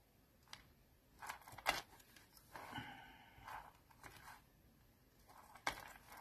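Faint scraping and scattered sharp clicks from a scalpel cutting out a small paper leaf on a cutting mat, with metal bracelets on the wrist clinking as the hands move.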